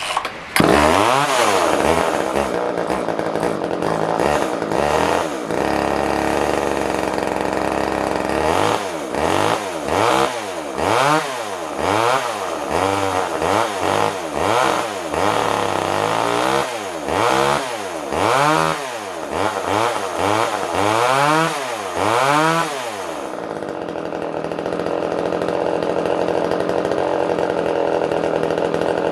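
Poulan Wood Shark two-stroke chainsaw engine running, revved up and down again and again in short blips for about twenty seconds, then left running at a steady speed near the end. It is struggling to pull enough fuel, which the owner puts down to a carburettor that needs a rebuild kit.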